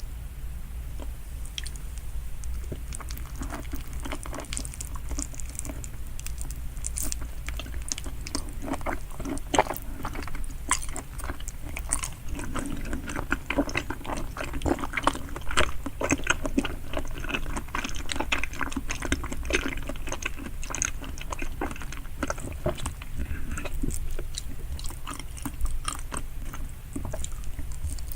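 Close-miked chewing of salmon sushi: wet mouth sounds with dense small clicks and crackles, busier from about a third of the way in.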